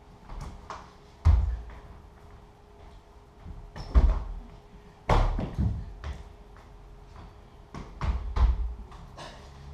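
A dancer's feet and body hitting a stage floor: irregular heavy thumps and sharp slaps, about a dozen, the loudest a little past one second, at four seconds and at five seconds, with a quick cluster near the end.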